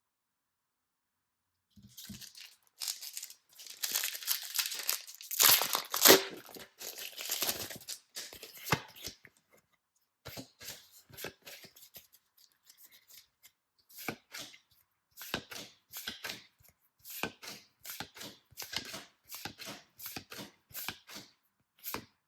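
Pokémon card product packaging being torn open by hand, with crinkling, loudest about six seconds in; then a long run of short, separate rustles as it is handled.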